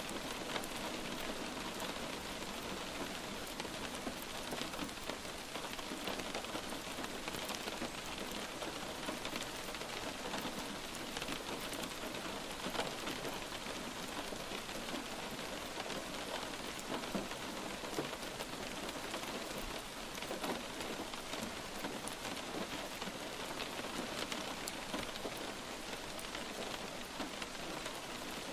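Steady light rain falling on a surface: an even hiss of rain with many small drop ticks scattered through it.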